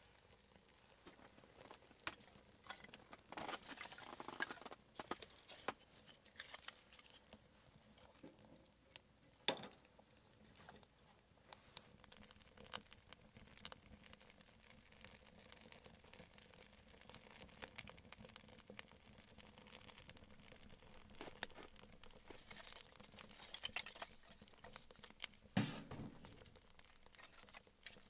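Kindling fire crackling and popping in the open firebox of a small sheet-metal wood stove, with a few louder snaps among the steady small crackles.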